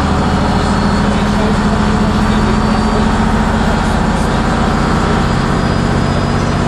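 Bristol RELH6L coach's rear-mounted Leyland O.680 six-cylinder diesel engine running steadily, heard from inside the passenger saloon.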